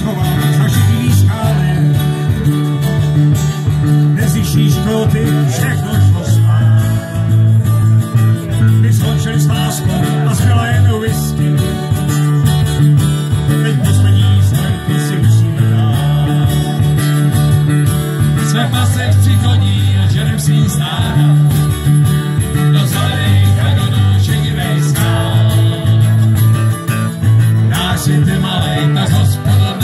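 Live acoustic band playing a song: two acoustic guitars strummed over an electric bass line, with sung vocals.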